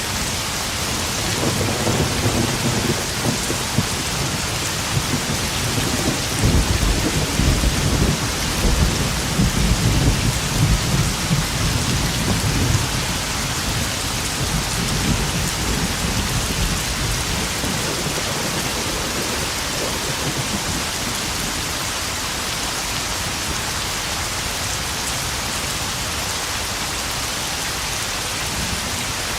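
Heavy rain pouring and pattering onto puddles in a steady hiss. A long rolling rumble of thunder builds in the first half, is loudest a little before the middle and dies away, leaving only the rain.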